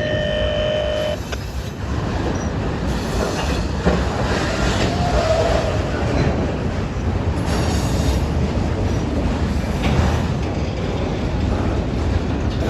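Freight train cars rolling past steadily, wheels rumbling and clacking over the rails. A brief high wheel squeal cuts off about a second in.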